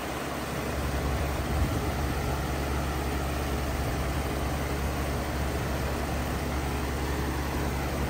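Carrier Comfort 25HCE 3-ton heat pump outdoor unit running in heat mode, its scroll compressor and outdoor fan going together: a steady low hum under an even rush of air.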